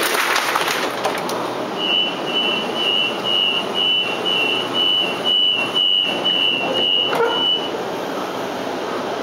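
Waratah train door-closing warning: a single high beep repeated about twice a second for some six seconds, over the steady noise of the carriage, signalling that the doors are about to shut.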